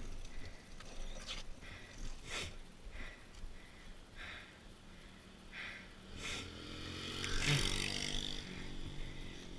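A motor vehicle's engine passing by, swelling to its loudest about seven to eight seconds in and then fading, over a low steady rolling rumble.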